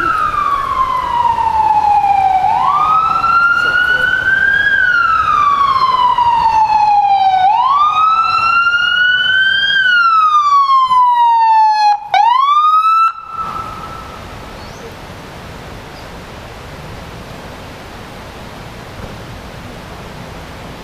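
Police car siren wailing, its pitch rising and falling slowly about once every five seconds. About 13 seconds in it gives one short upward sweep and cuts off suddenly.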